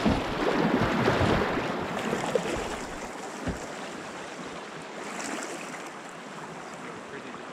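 River water rushing and splashing around an inflatable packraft as it runs a riffle. The water noise eases after about three seconds as the raft reaches calmer water, with a single knock about three and a half seconds in.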